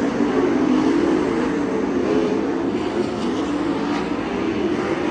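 Several 410 sprint cars' V8 engines running together on the dirt track, their pitches rising and falling and overlapping as the pack circles.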